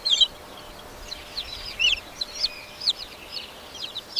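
Baby chick peeping: a string of short, high chirps, many sliding down in pitch, coming in little clusters throughout.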